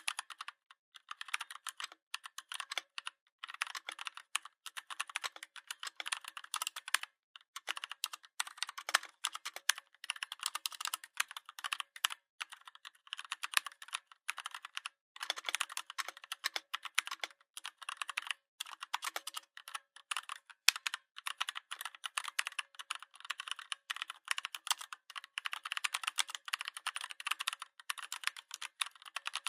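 Fast typing on a Redragon 61-key mechanical keyboard: a dense run of key clicks, broken by brief pauses every few seconds.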